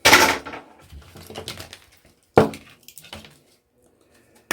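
Plastic and metal parts from a dismantled projector clattering as they are handled and set down. A loud clatter comes at the start, then lighter rustling and knocks, and one sharp knock about two and a half seconds in.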